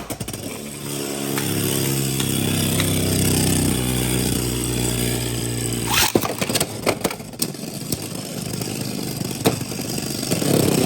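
Beyblade X spinning tops whirring in a plastic stadium, a steady hum that slowly drops in pitch as they spin down. From about six seconds in, sharp clacks and rattling as the tops collide and knock against the stadium walls.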